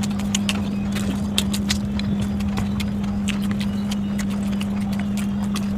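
Close-miked eating sounds: a person chewing food, with many rapid, irregular small clicks and smacks from the mouth, over a steady low hum.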